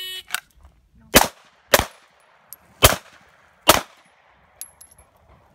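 An electronic shot timer gives its start beep, then a handgun fires four shots: two in quick succession about a second after the beep, a pause of about a second, then two more. Four shots at about 3.8 seconds on the timer: two on each of two targets in a USPSA Production-division run.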